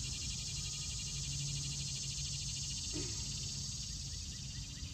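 Summer insect chorus of crickets or cicadas: a steady, finely pulsing high buzz, over a low steady hum.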